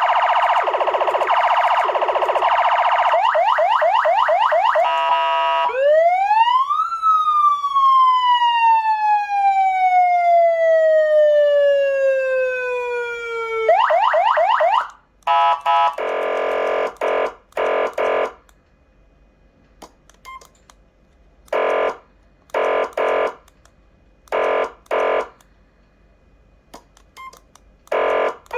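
PA3000 400W electronic siren sounding through its speaker and switching between tones. First comes a rapid pulsing warble for about five seconds, then one rise and a long slow fall in pitch like a wail winding down, then a quick fast warble. After that come several short horn-like blasts with pauses between them.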